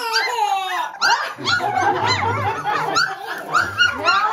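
Several young puppies whining and yipping, with quick, high, overlapping cries.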